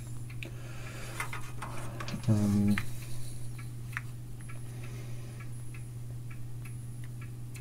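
Light, irregular clicks and ticks from handling the endoscope camera and small parts inside the opened oscilloscope, over a steady low hum. A short hummed voice sounds about two and a half seconds in.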